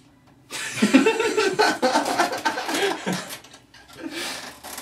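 Two men bursting into laughter, cracking up out of character: loud, breathy laughing starting about half a second in, fading about three seconds later into a quieter snicker.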